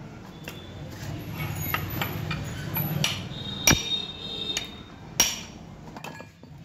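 Hammer tapping on a Tata Ace rear differential's crown wheel carrier and bearing plate to settle the freshly tightened bearings: a handful of sharp metal-on-metal strikes with lighter clinks between, the loudest about four seconds in ringing briefly.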